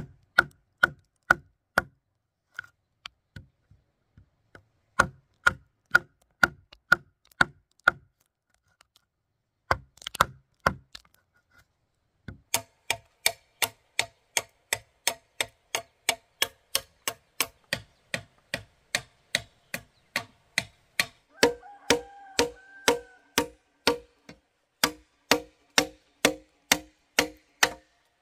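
Hand chopping into timber with a steel blade: a steady run of sharp blows, about two to three a second, with a short pause about eight seconds in. The later blows ring with a pitched tone.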